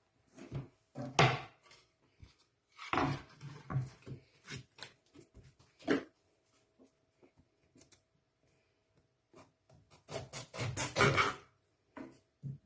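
Kitchen preparation noises: short knocks and scraping or rubbing on a hard surface, coming in a few bunched bursts, loudest about a second in and again around eleven seconds in. A faint steady hum runs underneath.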